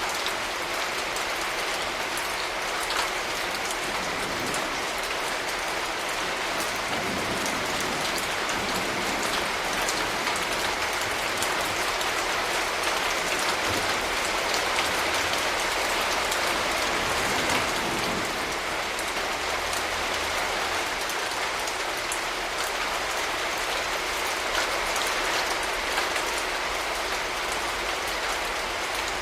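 Steady rain: a constant hiss with scattered individual drops ticking on a surface.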